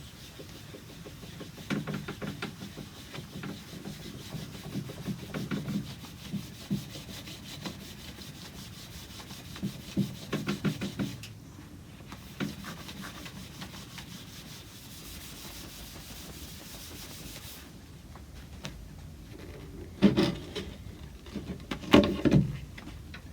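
A cloth rubbing a linseed-oil-and-vinegar reviver into the faded wood of a longcase clock plinth, in irregular scrubbing strokes that bring back the bleached colour and lift the dirt. Two louder clusters of knocks near the end.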